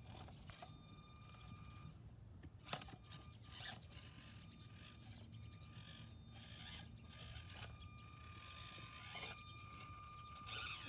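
Axial SCX24 micro RC crawler's small electric motor whining faintly in spurts, with scrapes and clicks as the truck works over an obstacle; one sharp click a little under three seconds in.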